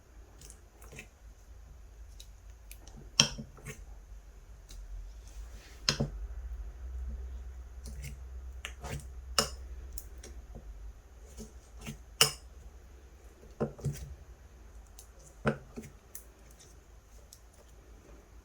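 Hands squeezing and pressing a clay-mixed slime, making irregular sharp clicks and pops, the loudest about three seconds in and again about twelve seconds in.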